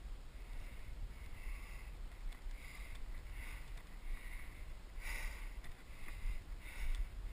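Soft rhythmic rustling, about one swish every 0.7 seconds, over a low rumble of wind or handling on the camera microphone.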